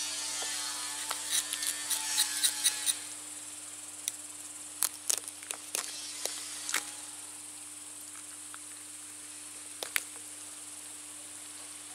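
Knife clicking and scraping against crucian carp and a wooden cutting board as the fish are gutted and cleaned: a run of short sharp clicks, densest in the first few seconds, again a little after the middle and once near the end. Behind it, a steady high insect chirring.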